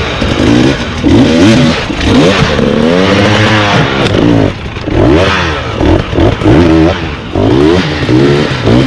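Enduro dirt bike engine revved hard in repeated throttle bursts, its pitch rising and falling again and again as the rider works the bike over the course.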